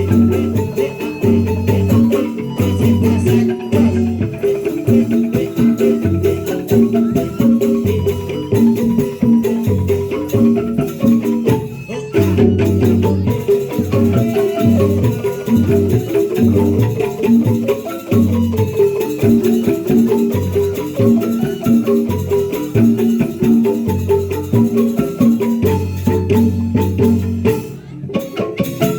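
Percussion ensemble music led by mallet-struck keyed instruments, playing fast repeating patterns over a deep low part, with rattling percussion mixed in. The playing eases off briefly near the end and then carries on.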